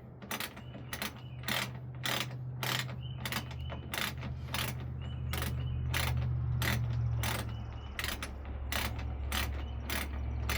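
A 1/2 inch socket ratchet clicking steadily, about three clicks a second, as it tightens a door-latch mounting bolt inside a utility-vehicle door. A steady low hum runs underneath.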